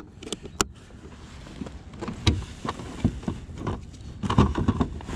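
Fishing kayak under way on calm water: irregular low knocks and thumps from the hull and gear over a light steady hiss, loudest in a cluster near the end.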